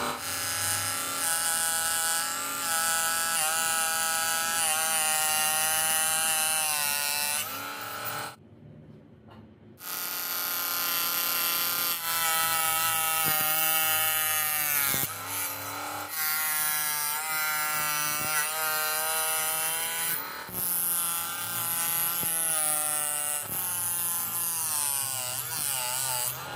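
Small electric motor of a homemade PVC mini table saw running with a whine, its pitch dipping and recovering several times as the blade bites into wood. The sound cuts out for about a second and a half, about eight seconds in, then resumes.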